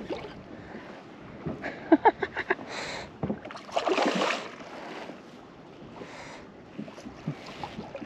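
Water splashing and slapping beside a kayak as a foul-hooked freshwater drum thrashes at the surface. A quick run of short splashes comes about two seconds in, and a longer, louder splash comes about four seconds in.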